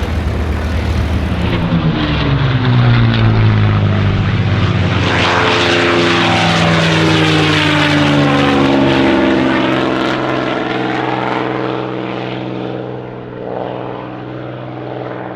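Piston-engine propeller warbird flying a loud low pass. The engine note builds to a peak, drops in pitch as the aircraft passes, then fades as it moves away.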